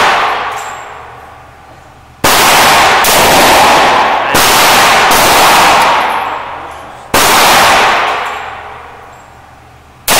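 Gunshots from a .357 Magnum snub-nosed revolver: about four loud shots spaced two to three seconds apart, each sharp crack trailing off in a long echo.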